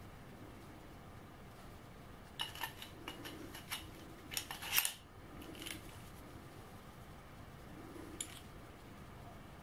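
Small metal parts clicking and clinking as a drill bit with a stop collar and the parts of an aluminium drilling jig are handled and fitted together. A cluster of sharp clicks comes from about two and a half to five seconds in, and one more click about eight seconds in.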